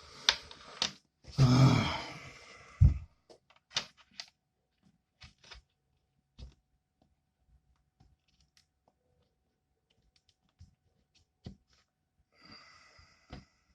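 A heavy exhaled sigh, then a sharp knock and scattered small clicks and taps from handling small objects on a work surface, with another breath near the end.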